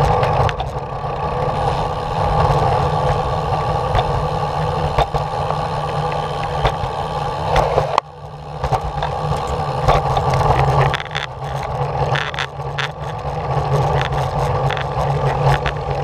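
Steady rolling rumble of wheels moving along a concrete path, with scattered sharp clicks as they cross the joints in the pavement and a short dip about halfway through.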